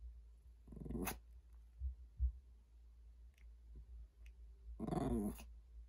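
Small Maltese dog giving two short barks, one about a second in and a longer, pitch-bending one near the end: demand barking at its owner for a treat.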